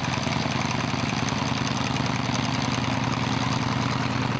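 Twin radial engines of an Avro Anson running at low power as it taxis: a steady engine drone with a fast, even pulsing beat.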